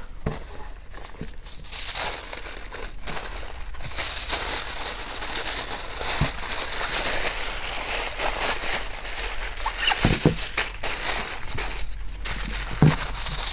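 Aluminium foil crinkling and rustling as it is pulled off the roll and wrapped around a banana-leaf parcel, in uneven bursts that grow heavier about four seconds in.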